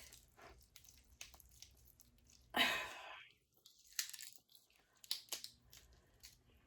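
Close-miked eating from a seafood boil: wet chewing with many small clicks and crackles, and one louder crunchy burst about two and a half seconds in.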